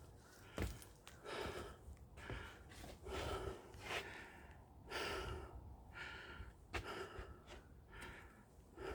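A person breathing hard while walking uphill, a heavy breath about once a second, with a few sharp footstep clicks.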